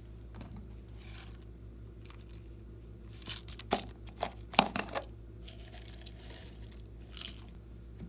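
Glossy slime being worked by hand: a run of sharp sticky clicks and pops about three to five seconds in, with soft crinkly rustles before and after, over a steady low hum.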